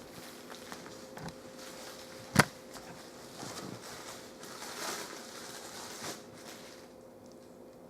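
Hands handling parts and packaging: one sharp click or clack about two and a half seconds in, then stretches of rustling and a softer knock, over a faint steady hum.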